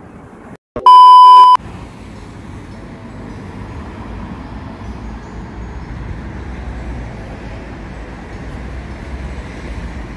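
A loud electronic beep, one steady high tone lasting under a second, shortly after the start. It is followed by steady outdoor street ambience with a low traffic rumble.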